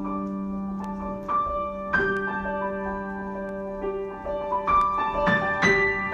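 Solo piano improvisation: chords ring on while new notes are struck about a second in, at two seconds, and in a quick cluster near the end.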